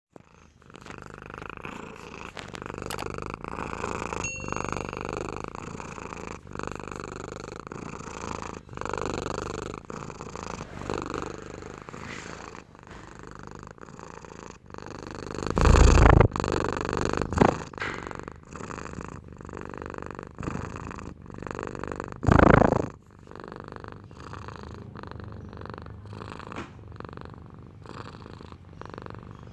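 Domestic cat purring continuously in a fast, pulsing rumble. Two loud, brief bumps break in, one a little past halfway and one about three-quarters through.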